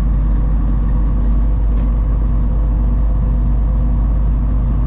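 Steady drone of a semi truck's diesel engine and road noise heard inside the cab, the truck rolling slowly on a snow-packed highway.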